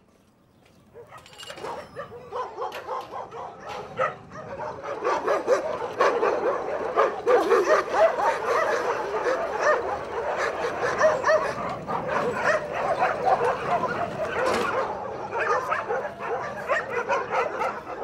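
A large pack of kennelled dogs barking, yipping and whining all at once in a dense, overlapping chorus. It starts thinly about a second in and swells to full volume after about five seconds.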